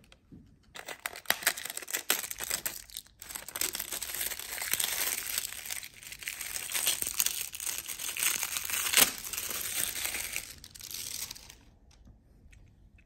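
Clear plastic wrapping crinkling and tearing as it is pulled off a scooter fork, with one sharper crackle about nine seconds in. It stops about a second and a half before the end.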